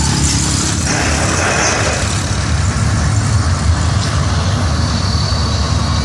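Steady low rumble of heavy vehicle engines running, like trucks and project machinery.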